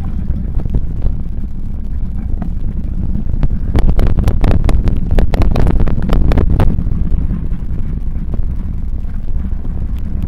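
Steady low rumble of wind on the microphone of a bicycle on the move. From about three and a half to nearly seven seconds in comes a quick run of clattering knocks as the bike jolts over rough, potholed gravel.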